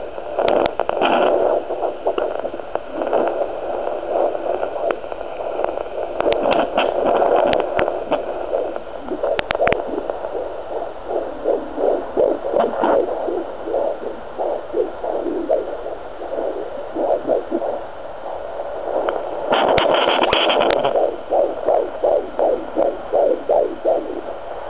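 An unborn baby's heartbeat picked up by a fetal Doppler monitor: fast, even whooshing pulses, about two and a half a second. A few bursts of rustling noise cut across the beat.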